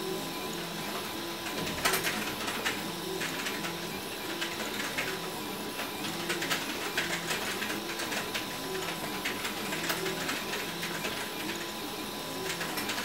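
RepRap Huxley 3D printer running a print: its stepper motors whir in short runs of changing pitch as the print head moves, with scattered light clicks, the sharpest about two seconds in.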